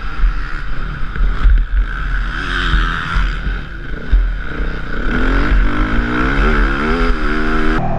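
2013 KTM 450 SX-F Factory Edition's single-cylinder four-stroke engine running hard on a motocross track, with heavy wind buffeting on the on-board microphone. From about five seconds in the engine's pitch climbs steadily as the bike accelerates, and the sound changes abruptly near the end.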